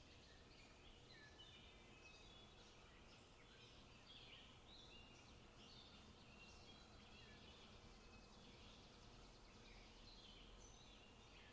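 Faint forest birdsong: several small birds give short chirps and brief whistled notes, overlapping and scattered throughout, over a low steady background rumble.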